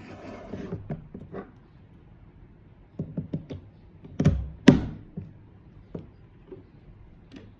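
A plastic plug-in remote control socket being handled and pushed into a wall outlet: a few light clicks, then two sharp thunks about four and a half seconds in.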